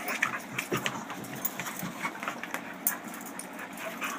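A puppy and another dog play-fighting: irregular scuffling with scattered clicks of claws and paws on the floor.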